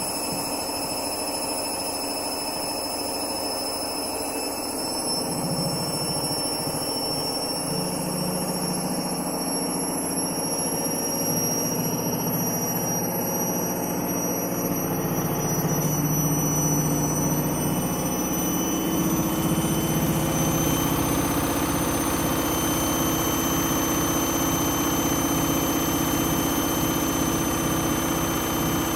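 Candy Grande Vita 7 kg washing machine spinning at high speed: a steady drum hum and rumble with a high whine that creeps slowly up in pitch, getting a little louder around the middle. The noise comes from worn drum bearings, which the owner says are on the way out.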